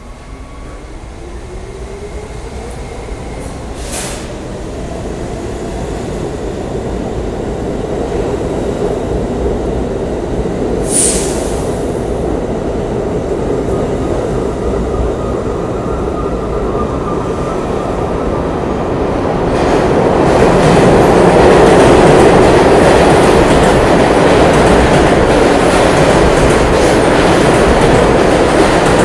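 New York City subway local train pulling out of the station, its motors whining up in pitch over the first few seconds, with a short high wheel squeal about 11 seconds in. About 20 seconds in, an express train runs through on the express track and its wheels on the rails become the loudest sound.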